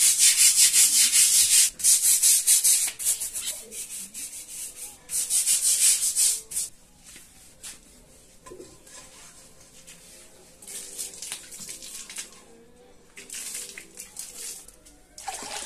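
A brush scrubbing the rough surface of a volcanic-stone metate, with rapid rasping back-and-forth strokes for about six seconds that then stop. Near the end, a short splash of water thrown from a bowl onto a concrete floor.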